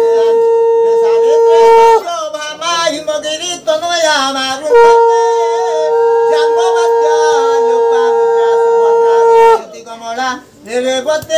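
Conch shell (shankha) blown in long steady notes: one held until about two seconds in, then a second held for about five seconds from near the middle. Wavering hulahuli ululation rises between and around the conch blasts, the auspicious ritual sounds of the puja.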